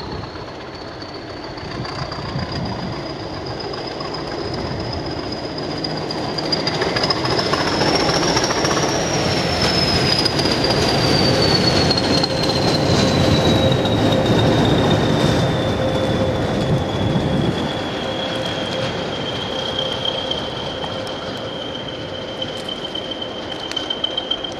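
Class 20 diesel locomotive passing, its English Electric eight-cylinder engine running under a strong high whistle that climbs in pitch as it approaches and slides down as it goes away. The rumble of engine and wheels is loudest in the middle of the pass, with a few knocks from the wheels near the end.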